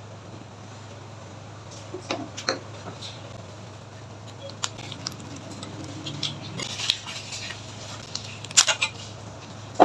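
Scattered light clinks and taps of kitchen containers and utensils as seasoning is added to a pot of broth, the loudest near the end, over a steady low hum.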